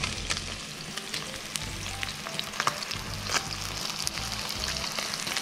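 A calico bass fillet frying skin-side down in hot oil: a steady sizzle with scattered sharp pops and crackles.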